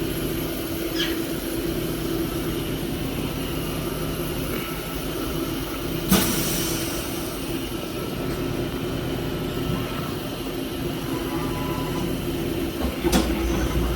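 A workshop machine tool's electric motor running steadily with a hum, while a metal part is worked. There is a sharp knock about six seconds in, and the low hum gets louder near the end.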